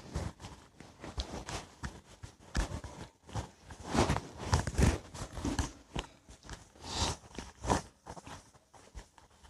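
A whiteboard being wiped clean with the flat of a hand: a run of irregular rubbing strokes across the board's surface.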